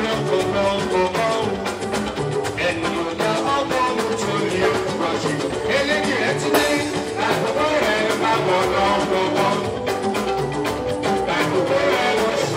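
Music with a singing voice and drums, playing steadily throughout.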